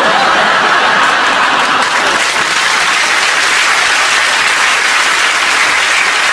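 Studio audience applauding, a dense steady wash of clapping.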